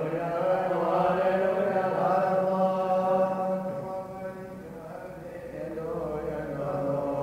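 Syriac Orthodox liturgical chant: voices sing long held notes with slow melodic turns over a steady low drone. It falls quieter about four seconds in and swells again near the end.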